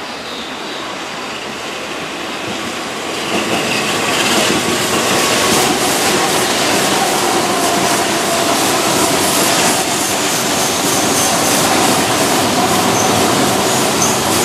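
Keihan electric commuter train passing close over curved track and pointwork: steady wheel-and-rail running noise that gets louder about three seconds in as the cars come alongside. Thin high wheel squeal from the curve comes in during the second half.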